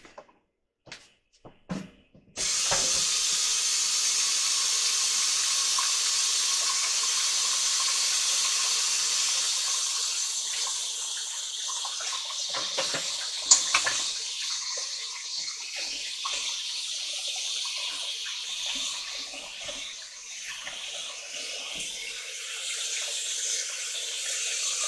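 Kitchen tap switched on about two seconds in and running steadily into a sink. The stream turns more uneven from about ten seconds, with one sharp clink in the middle.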